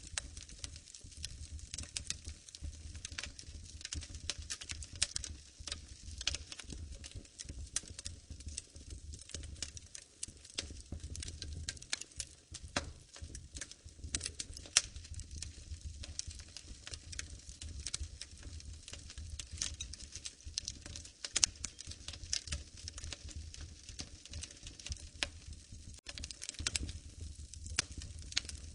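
Wood fire crackling in a fireplace: dense, irregular pops and snaps over a low steady rumble, with a few sharper pops now and then.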